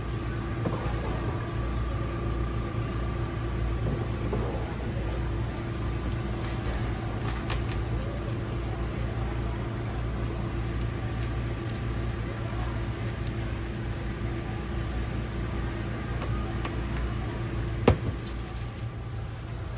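Steady low machine hum with two faint steady tones running through it, under light plastic rustling and handling. A single sharp click stands out near the end.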